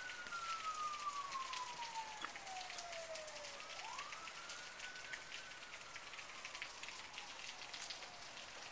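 Hard rain falling steadily with a wailing siren over it: its pitch rises quickly and then sinks slowly over a few seconds, starting a new rise about four seconds in and again at the very end.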